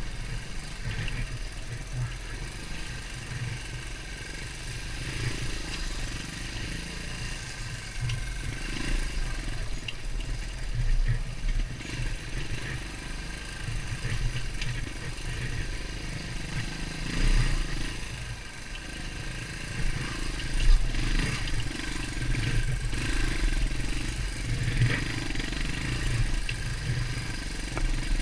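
Beta Alp 200's single-cylinder four-stroke engine running at low to moderate revs while the dirt bike rides a trail, the revs rising and falling, with occasional knocks from the bike over rough ground.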